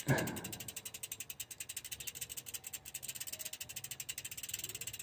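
Bicycle rear hub freewheel pawls clicking in a rapid, even ticking as the cranks are turned backwards to run the chain past the lube bottle.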